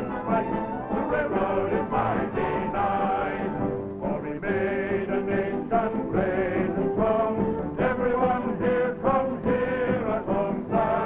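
Orchestral music, several held melody lines moving together.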